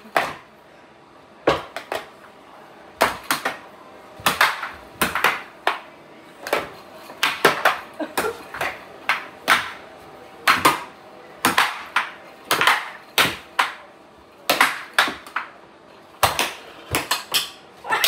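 Air hockey rally: hard plastic mallets striking the puck and the puck clacking off the table's rails, in sharp irregular knocks about two a second, starting about a second and a half in.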